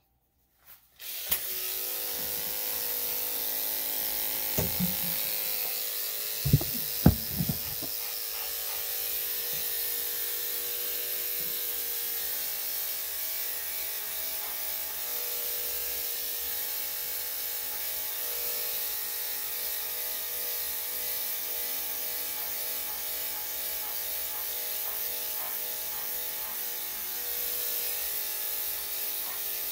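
Electric dog grooming clippers fitted with a number 7 blade start about a second in and run with a steady hum, shaving a heavily matted coat. A few brief louder bumps come between about four and eight seconds in.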